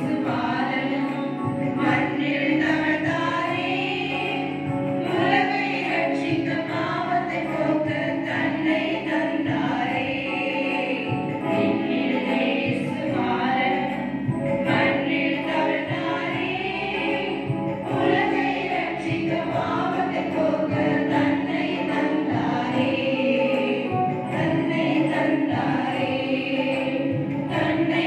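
A group of women singing a Tamil Christian song together as a small choir.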